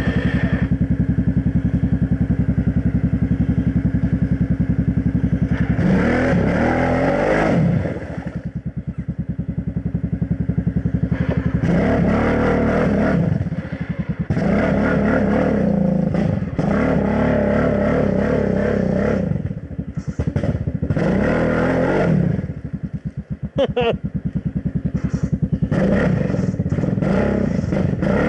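Kawasaki Brute Force 750's V-twin engine running steadily, then revved hard in repeated bursts of a few seconds as the quad churns through deep, thick mud, dropping back between bursts.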